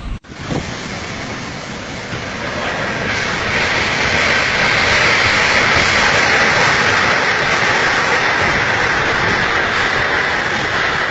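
A storm: a loud, steady rushing of wind and heavy rain that builds over the first few seconds and then holds.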